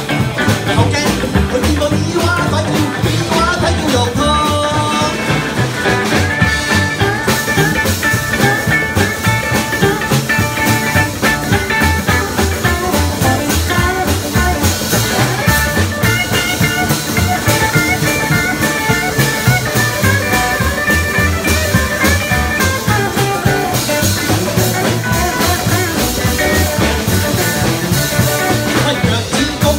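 Live rockabilly band playing: upright double bass, electric guitars and drums keeping a steady, driving beat.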